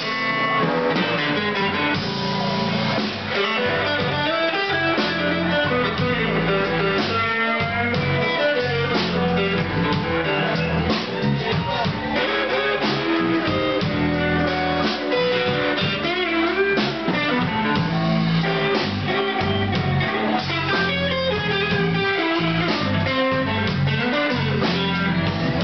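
Live blues band playing an instrumental passage: electric guitar lines over bass and drums.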